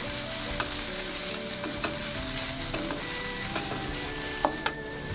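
Sliced garlic, shallots and ginger sizzling in a little hot oil in a wok, stirred with a wooden spatula that scrapes and taps against the pan now and then.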